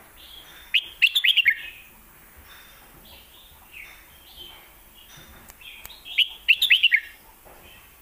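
Red-whiskered bulbul singing: two loud bursts of quick warbled notes, about a second in and again about six seconds in, with softer single calls between them.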